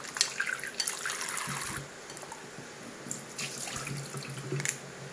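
Water splashing and sloshing as hands rinse pieces of soaked dried cuttlefish in a glass bowl at a stainless-steel sink. Near the end, the rinse water is poured out into the sink drain.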